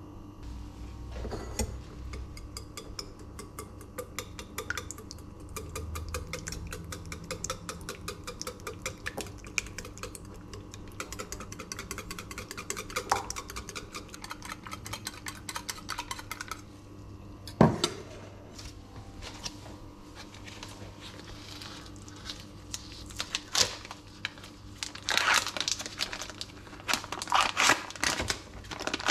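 Wire whisk beating eggs in a stainless steel bowl: a long, fast run of metallic clicking and scraping that stops with one loud clack. Near the end, plastic film crinkles as it is peeled off a package of sliced turkey ham.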